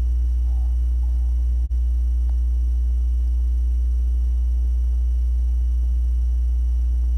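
A loud steady low hum with a fainter steady higher tone above it, cutting out for an instant about a second and a half in.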